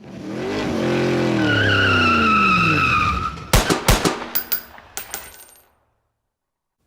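Intro sound effect: an engine-like pitched sound with a high squeal on top, its pitch sinking over about three seconds. Then a quick run of sharp bangs like gunshots, some with a high metallic ring, dying away by about two-thirds of the way through.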